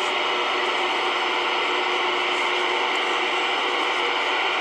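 CB radio on channel 19 (27.185 MHz) putting out a steady static hiss through its speaker, with no voice on the channel.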